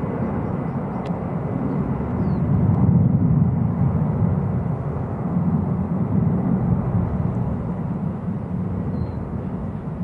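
Low rumble of a jet airliner's engines climbing out after takeoff, swelling about three seconds in and then slowly fading.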